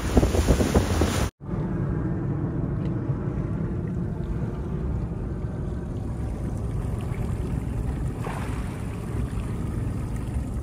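Small fishing boat under way at speed on open sea: wind buffeting the microphone and water rushing past the hull. The sound drops out for an instant about a second in, then goes on as a steadier, lower rumble of the motor and water.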